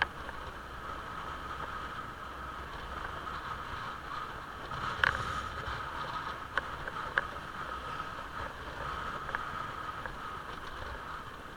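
Motorcycle running along a road, a steady engine and road noise, with a few sharp clicks; the loudest click comes about five seconds in.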